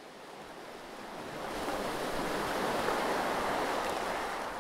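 A single rush of surf that swells to a peak about three seconds in and fades away, like one ocean wave washing in.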